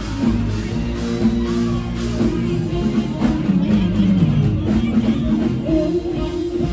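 Live band music from a mor lam stage show, with a steady beat and instruments playing on without singing.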